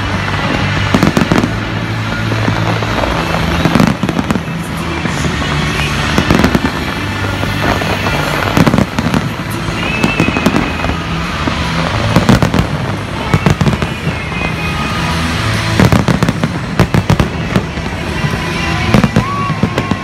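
Fireworks going off in a dense barrage, with frequent sharp bangs and crackling, over a music soundtrack with steady low bass notes.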